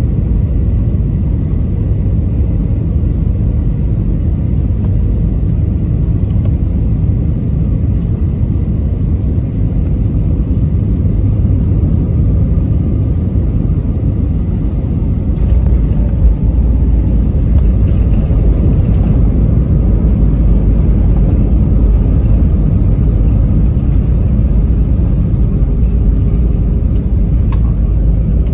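Cabin noise of an Airbus A320-232 on final approach: a steady low rumble of engines and airflow. About halfway through the airliner touches down with a brief bump, and the rumble deepens and grows louder as it rolls down the runway.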